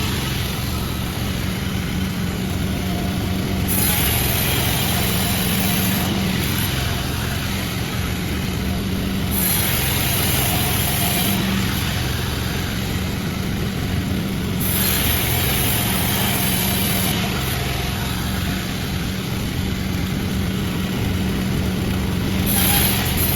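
Sawmill running as it saws a jackfruit log: a steady mechanical drone with a constant low hum throughout.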